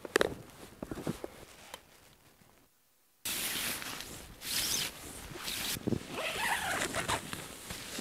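A few crunching footsteps in snow, then after a short gap, loud rustling and swishing of stiff tent fabric being unfolded and handled, with several short, sharp swishes.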